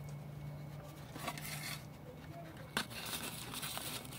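Soft rustling and handling noises, with one sharp click about three seconds in, over a low steady hum that fades at about the same moment.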